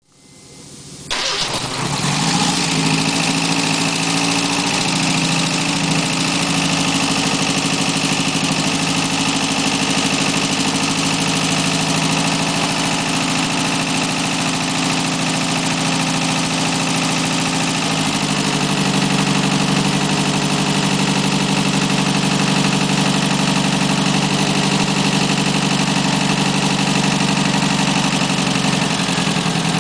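Rebuilt Ford 1.9 L CVH HO four-cylinder engine starting up for its first run after a rebuild, catching about a second in and then idling steadily. The idle note shifts about eighteen seconds in.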